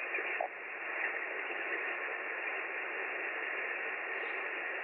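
Steady upper-sideband receiver hiss from an amateur radio transceiver's speaker, limited to a narrow voice-band range. The set is tuned to the QO-100 satellite downlink in a gap between signals.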